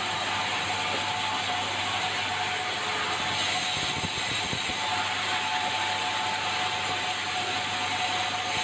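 Sawmill machinery running steadily: a constant mechanical hum under an even wash of noise and light clatter, with no pause or change.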